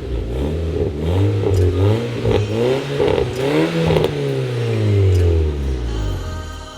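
Volkswagen Scirocco R's turbocharged four-cylinder engine through a full non-resonated 3-inch stainless Scorpion turbo-back exhaust, being revved: a few short rises and falls in pitch, then a longer climb peaking about three and a half seconds in and a slow fall, fading near the end.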